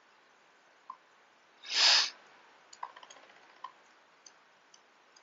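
A short, sharp breath about two seconds in, followed by a few faint light clicks as a silicone makeup pad is dabbed against the skin.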